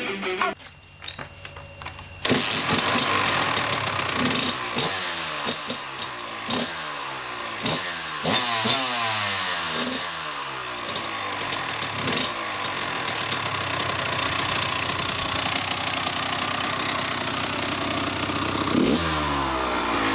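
2006 Kawasaki KX85's two-stroke single-cylinder engine starting about two seconds in, then revved in a string of short blips, each a rising whine. It settles into a steady idle, with one more rev near the end.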